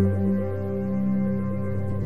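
Slow ambient background music of long held notes over a deep, steady low drone.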